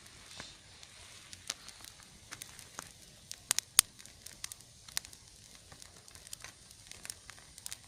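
Damp firewood burning with a faint hiss and irregular sharp crackles and pops, the loudest a little under four seconds in. The hissing and popping are the sign that the wood is damp.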